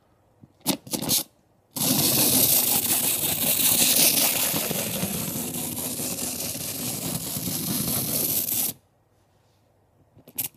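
Small battery-powered toy train running on its plastic track: a steady motor-and-gear whir lasting about seven seconds that cuts off suddenly, after a couple of clicks about a second in.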